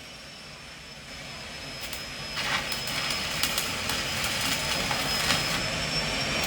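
Electric arc welding with a broken (intermittent) arc: a crackling hiss with irregular pops that swells about two seconds in, over a steady high whine.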